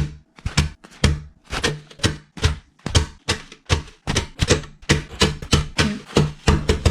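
Rapid, regular tapping: sharp knocks about three a second, quickening to four or five a second about four seconds in.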